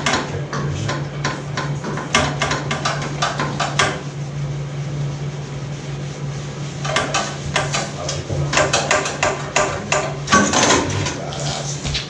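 Quick sharp clicks, about five a second, from hand tools at work on an ATV, in two spells with a pause of about three seconds between; a steady low hum runs underneath.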